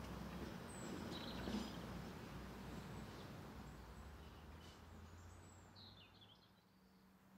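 Electric tram running away along the track, its low rumble fading steadily. A bird chirps a few times near the end.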